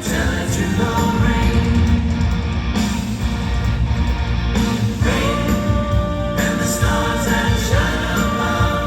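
Live pop-rock band and singers performing, with long held sung notes from about five seconds in.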